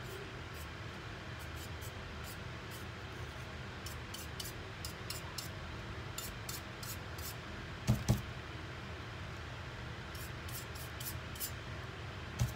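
Dry paintbrush flicking short strokes against a painted tumbler, making faint, irregular scratchy ticks over a steady low room hum. Twice a quick double knock is heard, about eight seconds in and again near the end.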